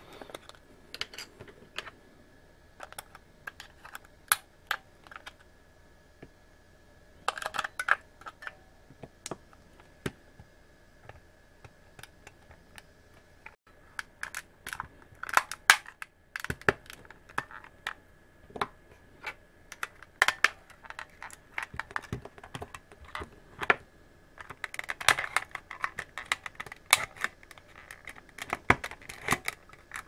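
Sharp plastic clicks, taps and snaps from an air-conditioner remote control being taken apart by hand: the batteries come out and a plastic pry tool works along the seam of the case to unclip the shell. The clicks come irregularly, bunching up about a quarter of the way in, around the middle and near the end.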